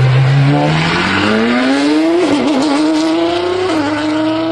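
Apollo Project EVO hypercar's V12 engine accelerating hard as the car pulls away, its revs climbing steadily, wavering briefly about two seconds in, then climbing again with a short dip near the end.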